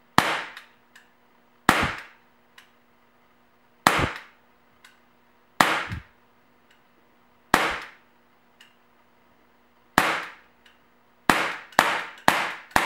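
Umarex Makarov CO2 BB pistol firing at a paper target: sharp single cracks, about six of them roughly two seconds apart, then a quicker run of four or so shots near the end. A faint steady hum lies underneath.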